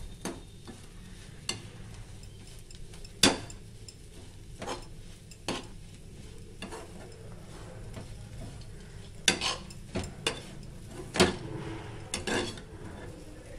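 Metal spoon stirring and scraping bread upma in a metal kadai, with irregular clinks and knocks against the pan, several in quick succession near the end, over a low steady hiss.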